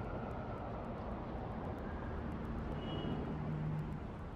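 Steady background noise of road traffic, with a faint brief tone about three seconds in.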